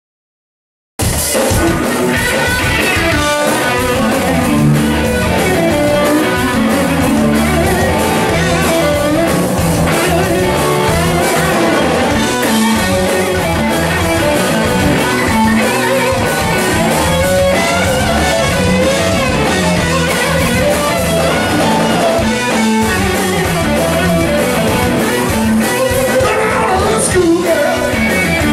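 Live blues-rock band playing: Les Paul-style electric guitar through Bogner amplifiers, over a drum kit. It cuts in abruptly about a second in.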